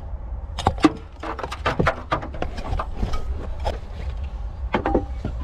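Clattering knocks and thuds of items being lifted out of a folding pull-along trolley and set into a car boot: a string of short, sharp knocks, with a pair of louder ones near the end, over a steady low rumble.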